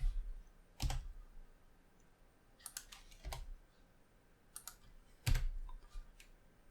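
Several scattered clicks of a computer keyboard and mouse as keys and buttons are pressed one at a time, some with a dull thump.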